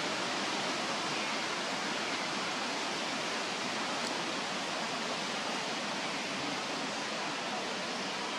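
Steady, even hiss of outdoor background noise, without rhythm or change.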